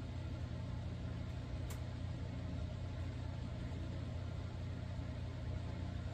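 Steady low hum with a faint buzz in it, and a single faint click about two seconds in.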